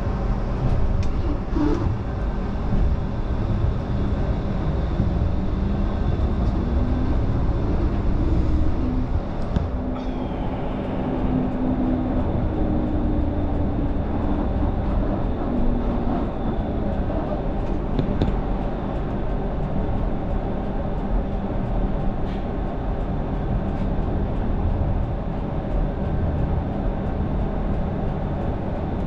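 Low-floor Flexity Freedom light-rail tram running along the track, heard from its cab: a steady low rumble with a motor hum, its pitch gliding up and down between about six and sixteen seconds in, and a few faint clicks.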